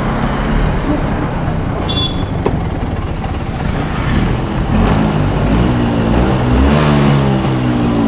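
A motor vehicle running, with a heavy, steady low rumble of engine and road noise; in the second half the engine's pitch steps up and down.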